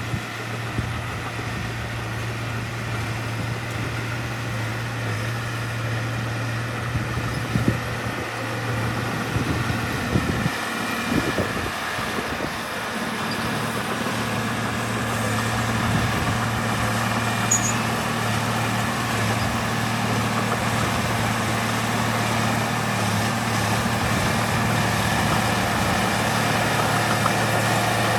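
Diesel engine of earthmoving machinery running steadily, with a cluster of clanks and knocks several seconds in. The engine grows gradually louder toward the end.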